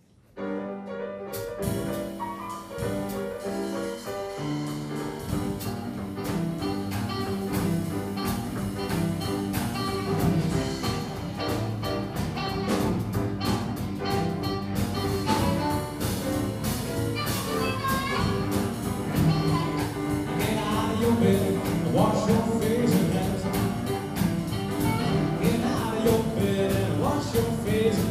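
Live boogie-woogie band playing: upright piano, drum kit and blues harmonica. It starts about a second in and builds a little louder.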